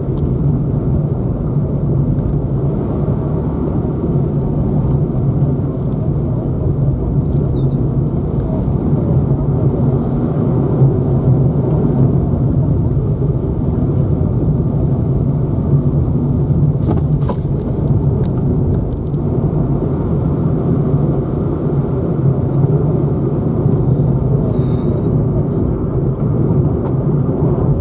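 A car's steady driving noise, engine and tyre rumble, heard from onboard the moving car.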